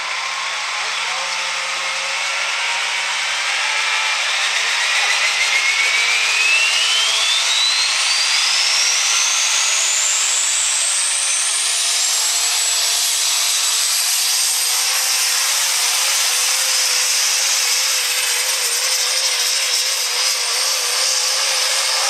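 Super stock diesel 4x4 pulling truck at full throttle, dragging the sled down the track. Its engine runs flat out under load, and a high turbocharger whine climbs steadily for about twelve seconds, then holds high as the pull goes on.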